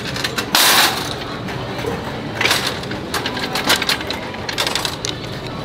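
Plastic shopping cart rattling and clattering as it is pushed along the store floor: a steady rolling rattle with bursts of sharp clacks, the loudest about half a second in.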